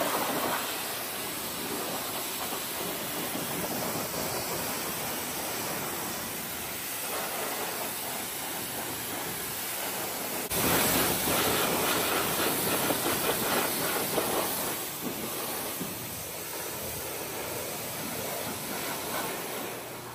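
Pressure washer jet hissing and splashing over an electric scooter and the floor around it, jumping louder about halfway through.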